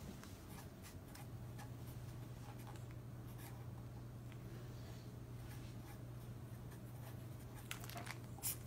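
Quiet small-room tone with a steady low hum and faint scratchy rustling, and a few light clicks near the end.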